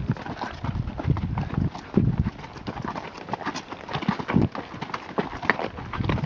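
Several horses' hooves clip-clopping as they walk along a dirt desert trail, an uneven run of hoof falls with a few heavier thuds.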